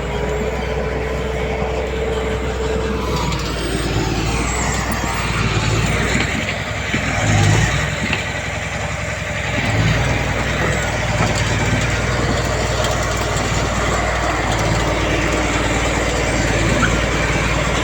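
Heavy diesel earthmoving machinery running under load, with a thin whine during the first few seconds. The engine note drops and then surges between about six and ten seconds in.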